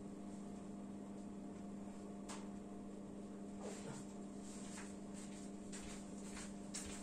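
Faint, steady electrical hum, with a few soft clicks scattered through it.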